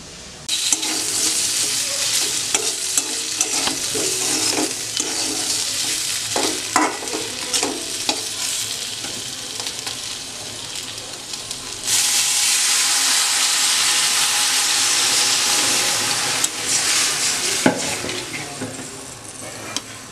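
Potato wedges and green chillies sizzling in hot oil in a metal wok, a metal spatula stirring and scraping with short clicks. About twelve seconds in the sizzle turns abruptly louder as liquid goes into the pan, then eases off near the end.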